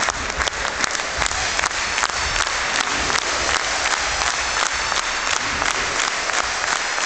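A large crowd applauding steadily, with sharp single claps standing out of the dense clapping.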